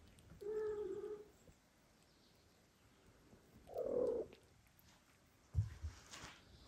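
Cats meowing twice: a short, steady meow about half a second in and a louder, noisier one around four seconds in. A few soft thumps and a rustle follow near the end.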